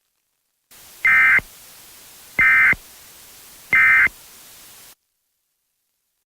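Emergency Alert System end-of-message data: three short, identical bursts of SAME warble tones, repeated about 1.3 seconds apart. A steady hiss sounds under them and cuts off abruptly about a second after the last burst.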